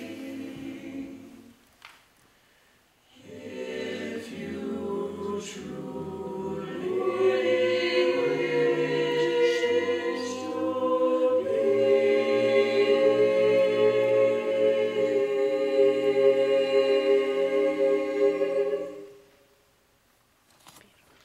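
Mixed-voice a cappella group singing close-harmony chords without instruments. After a short pause about two seconds in, the voices come back and build louder into a long held final chord that cuts off near the end.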